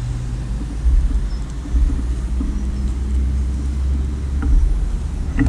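Motorcycle engine idling: a steady low rumble that gets heavier about a second in.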